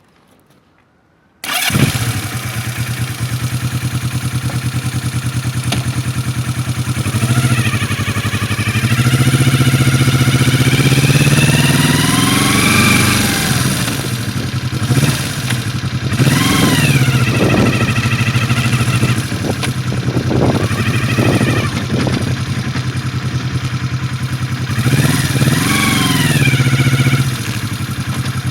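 Yamaha XS400 parallel-twin motorcycle engine starting about a second in, then idling and revved several times, once held up for several seconds. The engine makes a sound that the owner finds strange.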